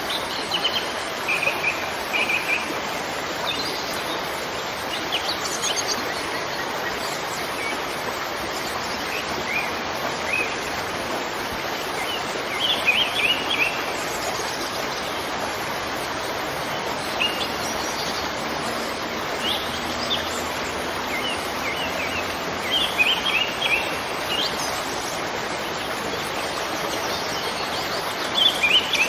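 Steady rush of a waterfall with birds chirping over it in short scattered runs of calls, busiest about a dozen seconds in and again about two-thirds of the way through.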